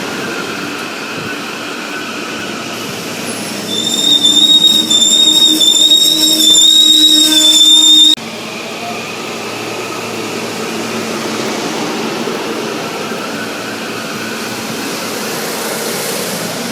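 Train running past on the rails with a steady rumble. About four seconds in, a loud, high, wavering wheel squeal starts, lasts about four seconds, and cuts off abruptly.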